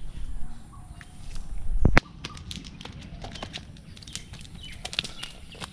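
A large fish flapping and slapping on bare ground beside a cast net: a run of quick, irregular slaps and rustles, with one louder sharp thump about two seconds in.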